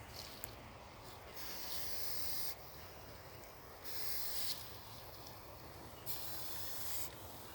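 A common European adder hissing three times, each a breathy hiss of about a second.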